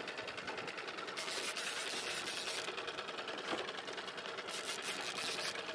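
Fishing reel being cranked steadily, a fast even clatter from its gears, as a hooked fish is reeled in.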